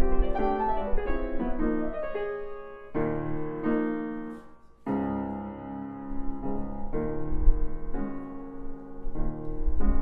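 Chickering 109C grand piano from 1897, its original soundboard recrowned, playing a slow piece: a quick run of notes at first, then full held chords struck one after another, with a brief hush just before the middle.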